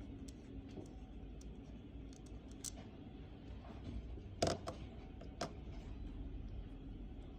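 Small clicks and light taps of a mechanical pencil's parts being handled during disassembly, with a sharper click about four and a half seconds in and another about a second later.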